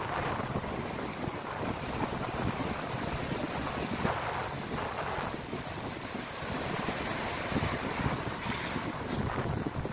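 Ocean waves breaking and washing ashore, swelling about four seconds in and again near the end, with wind rumbling on the microphone.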